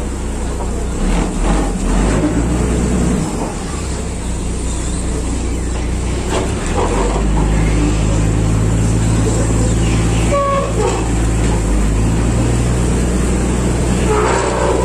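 Engine running steadily with a low drone, its pitch shifting a little about seven seconds in and again about twelve seconds in.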